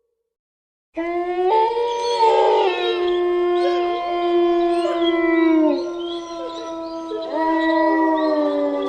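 Several wolves howling together in a chorus of long, overlapping held howls at different pitches, some sliding down at their ends. The howling starts about a second in, and a fresh howl rises near the end.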